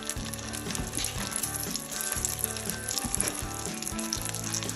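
Hot oil sizzling in a stainless steel frying pan as cheese-stuffed mushroom caps fry, with fine crackling throughout.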